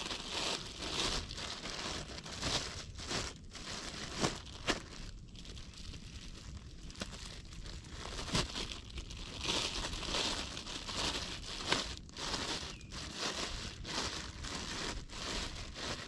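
Irregular crinkling and rustling that comes and goes in bursts, broken by a few sharp clicks and snaps.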